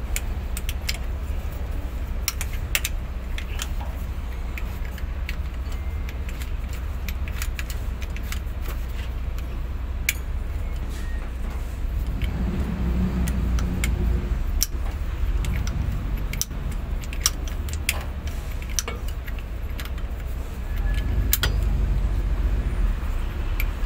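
Irregular sharp metallic clicks and clinks of a combination wrench working the bolts on a truck transmission's output yoke, over a steady low hum.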